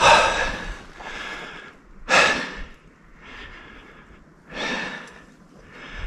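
A climber breathing hard: about five heavy breaths roughly a second apart, the first and the one about two seconds in the loudest.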